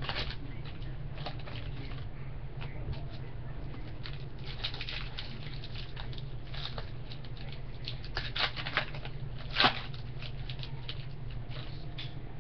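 Trading card packs and cards being handled: scattered light crinkles and clicks, with two sharper clicks near the end, over a steady low electrical hum.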